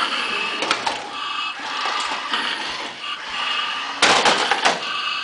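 Remote-control Spike the Dinosaur toy walking: its gear motor whirs steadily with a few sharp clicks, and a louder, harsher sound comes for under a second about four seconds in.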